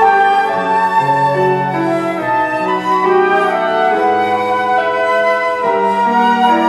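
Flute music in several parts: a slow piece with sustained flute melody lines changing note every second or so over lower held accompanying notes.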